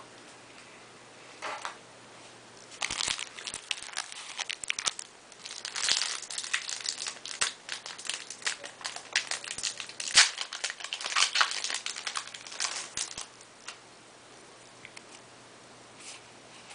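Foil trading-card booster pack being torn open and crinkled, a rapid crackling that comes in bursts for about ten seconds and then stops, followed by a few faint clicks of cards being handled.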